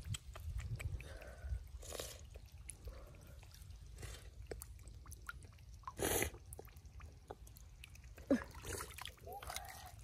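Faint wet squelching, small splashes and clicks as hands scoop through shallow muddy water, with one short louder noise about six seconds in.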